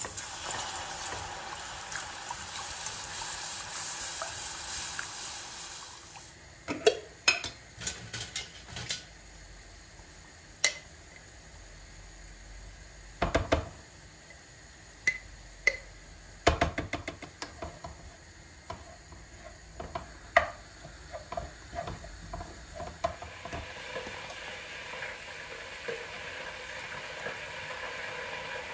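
Kitchen work sounds: utensils and cookware clinking and clattering against pots and dishes, many separate knocks through the middle. A steady hiss, like running water or food sizzling in a pan, fills the start and returns near the end.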